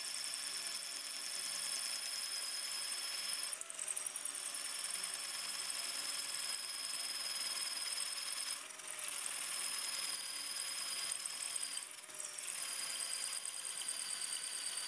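12 V cordless drill boring into a solid cement block with a 10 mm carbide masonry bit, its motor and gearbox giving a steady high whine that sags briefly three times as the bit loads up.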